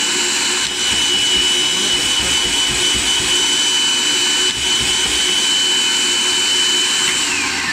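Food processor motor running at full speed, grinding a thick chickpea-and-herb falafel paste: a steady high whine over a rushing chopping noise. Near the end it winds down with a falling pitch as the motor stops.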